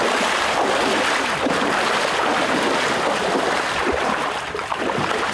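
Water splashing and sloshing steadily as a hunter wades through knee-deep floodwater in waders.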